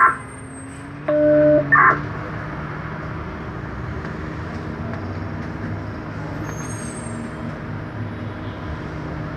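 Shuttle bus engine running and road noise from inside the cab while the bus creeps along in traffic, a steady low hum. About a second in, a short pitched tone sounds for about a second.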